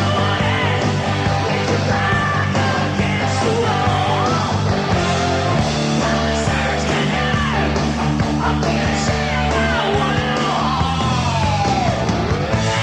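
Rock song with singing.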